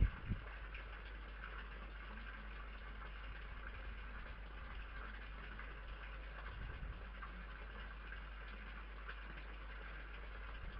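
Steady low electrical hum and faint hiss from a night-vision garden camera's microphone, with a few soft low thumps about six to seven seconds in.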